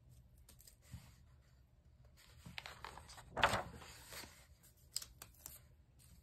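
A page of a coloring book being turned: soft paper rustling with a few light taps, and one louder swish of the page about three and a half seconds in.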